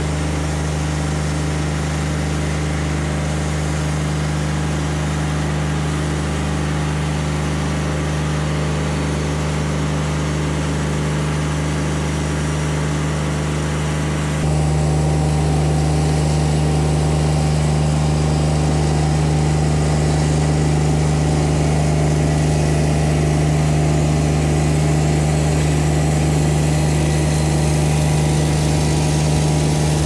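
Wood-Mizer LT40 Wide sawmill's engine running steadily. About halfway through the sound changes and gets a little louder.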